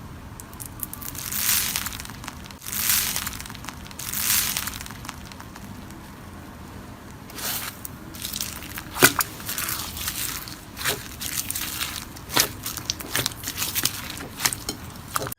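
Slime being squeezed and pressed by hand, with a crunchy, crackling texture: three longer crinkling squeezes in the first few seconds, then a quick run of sharp crackles and pops.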